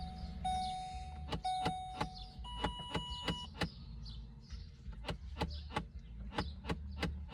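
Long electronic beeps about a second apart, then a single higher beep, followed by steady ticking of about three clicks a second. These are the signals of a new transponder key being programmed to the Ford PATS immobiliser.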